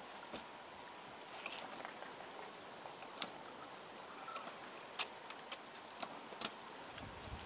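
Battered bamboo shoot pieces deep-frying in a pot of oil: a steady sizzle with scattered sharp pops and crackles.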